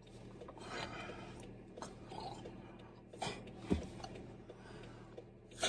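A person chewing small chocolates, with soft, irregular mouth sounds and a light knock partway through, ending with a short, louder noise.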